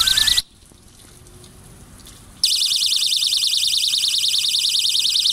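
Solar ultrasonic animal repeller's twin speakers sounding a loud, high-pitched, fast-warbling alarm tone. It cuts off about half a second in, then starts again about two and a half seconds in and keeps going.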